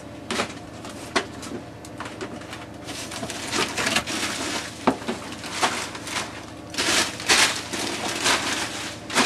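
Frozen food packages being rummaged through in a chest deep freezer: plastic crinkling and frozen items clunking against each other. The rustling gets louder around three seconds in and again around seven seconds in.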